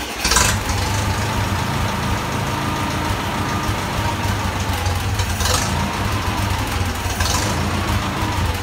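Massey Ferguson 65 tractor's gasoline engine running just after starting, its carburetor main jet drilled with an extra hole. The owner finds this makes no difference to the surge he has been chasing, which he takes for fuel starvation.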